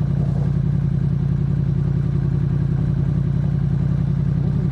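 Yamaha MT-10 SP's 998 cc crossplane inline-four engine idling steadily, an even, low, pulsing drone with no revving.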